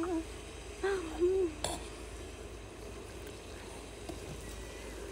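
A short hum from a voice about a second in, then a single sharp clink of a kitchen utensil, followed by a faint steady hiss.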